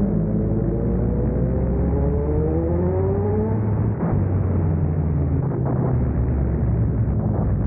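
Motorcycle with a loud exhaust pipe accelerating inside a road tunnel: the engine pitch rises for about three and a half seconds, dips briefly about four seconds in, then runs on steadily.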